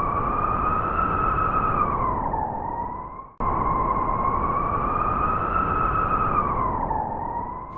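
Wolf howl: a long call that rises slightly and drops away at the end, heard twice in a row over a steady noise.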